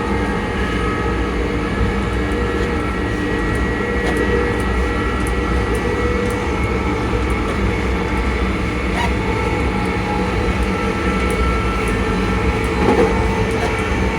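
ScotRail Class 334 electric multiple unit running at steady speed: the traction motors give a steady whine of several held tones over the rumble of the wheels on the rails, with a few light clicks and a brief louder knock near the end.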